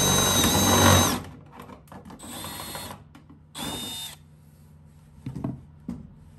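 Milwaukee M12 cordless drill with a step drill bit cutting through thin aluminium sheet, enlarging a hole toward seven-eighths of an inch. The cut stops about a second in. Two short bursts of the drill follow, then a couple of light clicks near the end.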